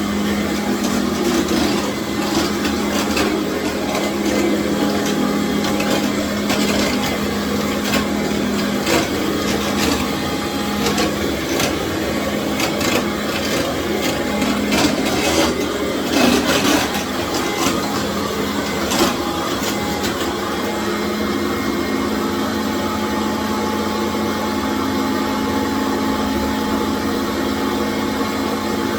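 Commercial vacuum cleaner running steadily on a tile floor, a constant motor hum with scattered clicks and knocks, most of them in the middle of the stretch.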